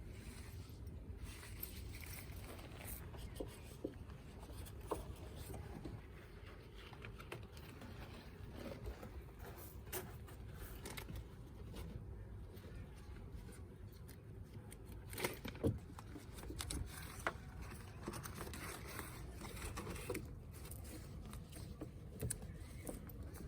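Scattered small clicks, knocks and rustles over a low steady hum, with a cluster of sharper knocks about two-thirds of the way through.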